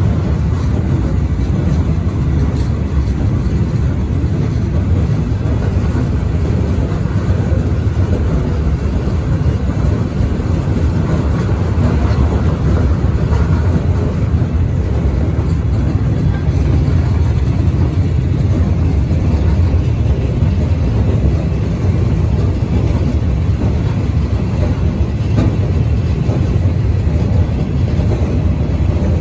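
Electric train with a ČD class 113 locomotive running steadily across a bridge, heard from on board: a continuous low rumble of wheels on rail and running gear.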